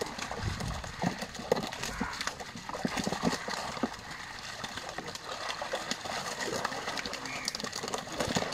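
Netted fish thrashing and flapping against the net and a plastic crate, with water splashing and dripping: a dense run of irregular wet slaps and knocks.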